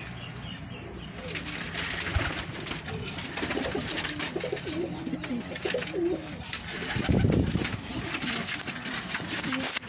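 Domestic pigeons cooing in a loft: a run of low, rolling coos from several birds, loudest about seven seconds in.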